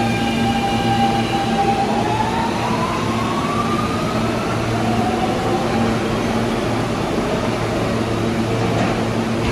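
New York City subway train accelerating out of the station into the tunnel. Its motors give a whine that rises in pitch for a few seconds, then fades as the train pulls away, leaving a steady low hum.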